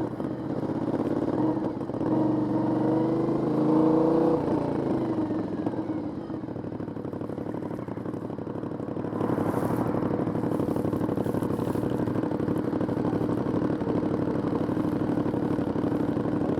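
Aprilia 900 V-twin motorcycle on its stock exhaust, accelerating hard for about four seconds with a rising engine note. The throttle then closes and the note falls, and from about halfway through the bike cruises at a steady engine speed with wind rush.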